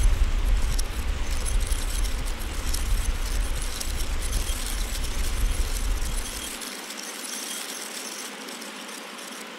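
Sound-design effect for an animated particle logo: a rushing hiss over a deep rumble, sprinkled with tiny glittery tinkles. The rumble cuts out about two-thirds of the way through, leaving a quieter hiss and sparkle.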